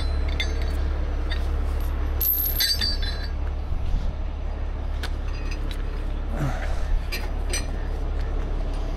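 Grade 10 recovery chain and an Omega link clinking as they are handled, a few sharp metallic chinks with a high ring, over a steady low rumble.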